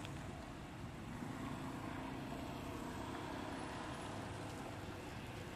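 A steady low rumble, like a motor vehicle going by, that swells in the middle, over light splashing of macaques shifting about in a shallow basin of water.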